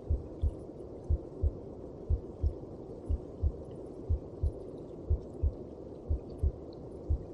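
A mother's heartbeat as heard in the womb, beating slowly and regularly at about one beat a second, each beat a double thump (lub-dub). Beneath it runs a steady hum.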